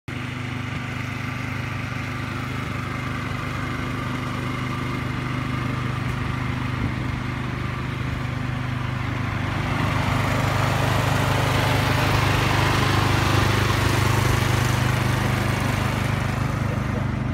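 An engine running steadily at an even idle. A louder rushing noise swells in from about ten seconds in and fades off near the end.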